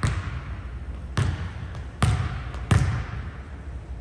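Basketball being dribbled on a hardwood gym floor: four loud, unevenly spaced bounces with a few softer ones between, each echoing in the large gym.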